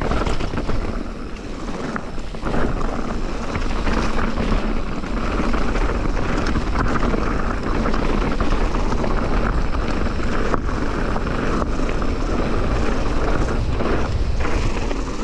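Mountain bike riding fast on a dirt trail: steady wind rushing over the camera microphone, with tyre and trail noise and a few brief knocks from bumps.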